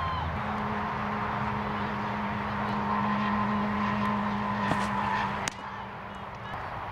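A steady hum in the background, with a sharp pop about five seconds in as a pitched baseball, a cutter, smacks into the catcher's mitt.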